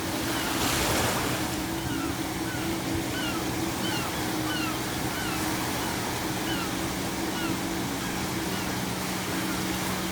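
Ocean waves washing on the shore, with one wave breaking louder about a second in. Seagulls give a run of short calls that fall in pitch through most of it, over a faint steady low hum.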